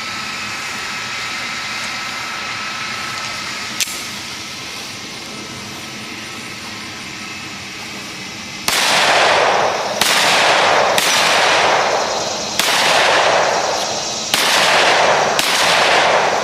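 A gun being fired at a shooting range: six shots spaced about one to one and a half seconds apart, starting a little past halfway, each dying away over about a second. They follow several seconds of steady outdoor noise with one sharp click.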